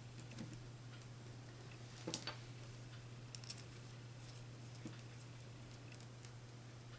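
Faint clicks and scratches of wire ends being twisted together and a plastic twist-on wire connector being handled, the clearest clicks about two seconds in, over a steady low hum.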